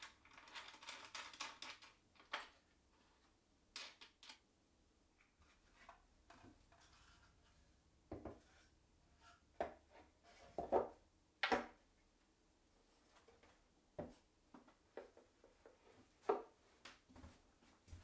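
Hands working a homemade MDF crosscut jig for a circular saw: a quick run of small clicks as a fitting on its aluminium track is adjusted, then scattered knocks and clatters of wooden parts being set down and shifted, the loudest about halfway through.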